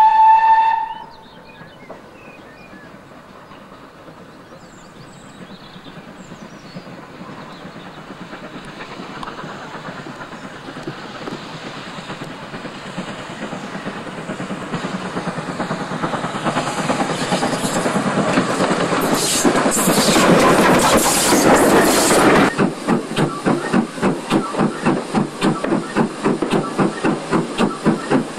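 GWR 2800-class 2-8-0 steam locomotive no. 2857 sounds a short whistle, then draws out of a tunnel with a rumble and hiss that grow steadily louder, loudest as it passes. After a cut, heard from the front of the moving engine, a steady rhythmic beat with hiss, about two beats a second.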